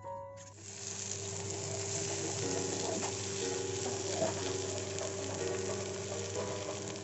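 Food sizzling in hot oil in a frying pan, the sizzle starting suddenly about half a second in and running on steadily. Soft background music plays underneath.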